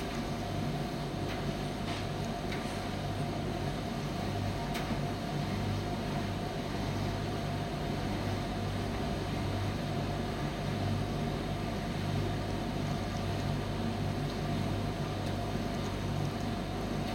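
Primus commercial tumble dryer running with a steady mechanical hum, with a low drone and a steady higher tone, and a few faint ticks in the first few seconds.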